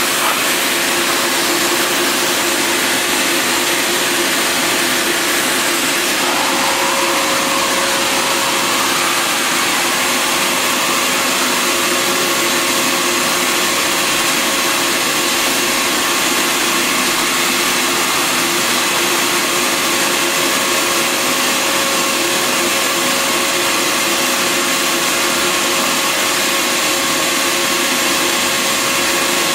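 Bissell Garage Pro wall-mounted wet/dry shop vacuum running steadily in suction mode: a loud rush of air with a steady motor whine over it.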